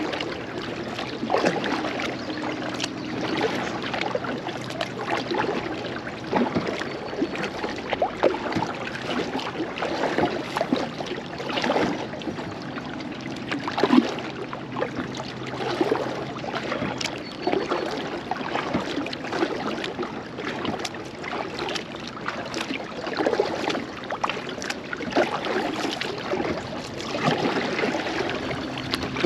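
Kayak paddle blades dipping and pulling through river water in repeated strokes, about one every one to two seconds, with water splashing and lapping along the plastic hull of a Pelican Argo 100X angler kayak.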